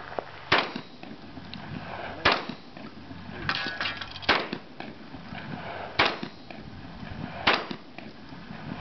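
Five shotgun shots, about one and a half to two seconds apart, fired at steel targets. Each shot is followed by a short echo, and a quieter clatter with a brief ring comes between the second and third shots.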